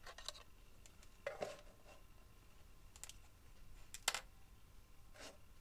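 Faint, scattered light clicks and knocks of a plastic digital multimeter being turned over and set down on a table, with its test leads handled; the sharpest click comes about four seconds in.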